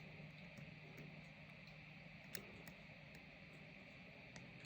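Near silence, with a few faint, scattered clicks of a lock pick working the pin stack inside a padlock cylinder fitted with Dormakaba pins.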